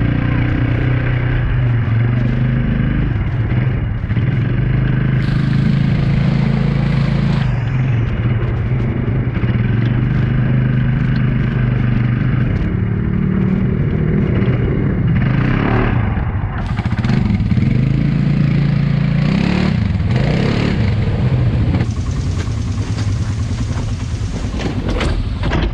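ATV engine running as the quad is ridden, its pitch rising and falling with the throttle.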